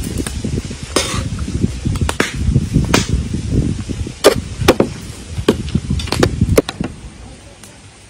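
A spoon scooping cooked rice and a green-bean and meat mixture into a metal pot, with a run of sharp taps and knocks of the spoon against the pot. The sounds thin out and stop a little before the end.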